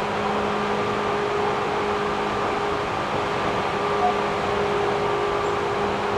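Seibu 3000 series electric train heard from inside the car while running: a steady rumble of wheels on rail with the steady hum of its chopper control and traction motors. The lowest hum drops out for a few seconds midway, and there is a small click about four seconds in.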